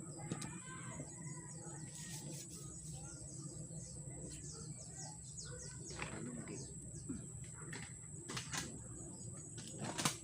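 Small birds chirping in quick, falling notes, with a few sharp clicks from metal parts being handled, the loudest about ten seconds in.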